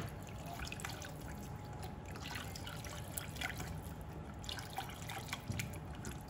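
Silicone-coated balloon whisk beating thin liquid in a stainless steel pot: faint sloshing and splashing with scattered light ticks. The broth is being whisked into a flour-and-cream roux so that it does not lump.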